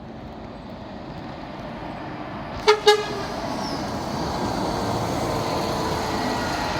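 A vehicle's engine grows steadily louder as it approaches. About two and a half seconds in, its horn gives two short toots in quick succession.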